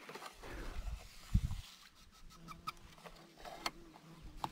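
Light clicks and knocks of a fishing rod being handled in a wooden boat, with one dull thump about a second and a half in.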